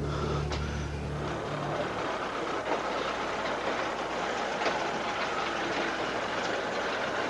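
A low held music chord ends about a second and a half in, giving way to the steady rumble of a car driving slowly along a rough street, with a few faint clicks and rattles.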